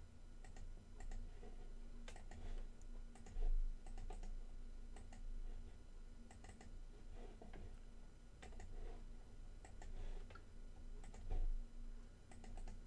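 Scattered computer mouse clicks and keyboard taps over a low steady hum, with two soft low thumps, about three and eleven seconds in.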